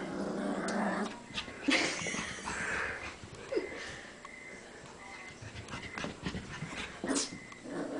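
A Cavalier King Charles Spaniel puppy making short, noisy dog sounds in irregular bursts, with scattered sharp clicks and taps.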